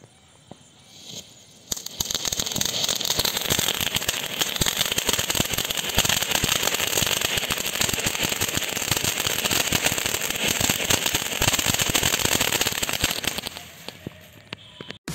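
A Hercules tin fountain firework (flowerpot) catching about two seconds in and spraying sparks with a steady hiss and a dense crackle of many small pops, which dies away near the end as the fountain burns out.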